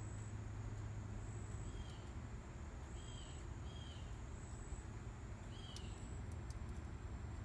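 Outdoor ambience: an insect chirps in short, high-pitched pulses about every second and a half over a steady low hum, with a few short, slightly falling bird chirps around the middle.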